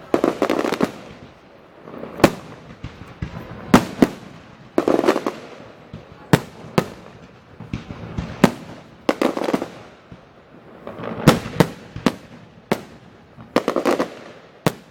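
Aerial fireworks display: sharp bangs go off every second or so, some in quick pairs, each trailing off into a crackling, echoing rumble.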